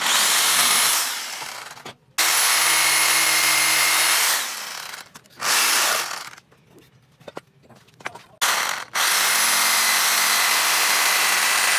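Corded electric jigsaw cutting through a thick wooden board, its motor running with a steady whine. It cuts in several bursts of up to about three seconds, stopping and starting between them, with the longest run near the end.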